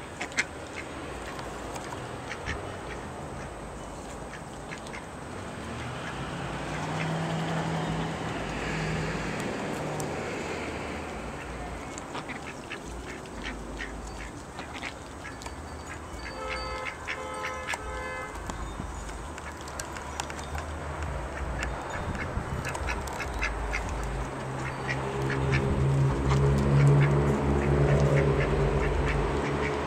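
Welsh Harlequin and Ancona ducks quacking while they feed on weeds, with many quick clicks of their bills working the plants. A run of quacks comes a little past the middle, and louder, lower calls build near the end.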